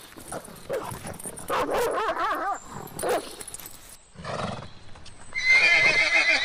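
A dog barking and whining with a wavering pitch, then, after a short break, a horse's loud, quavering whinny that fills the last second or so.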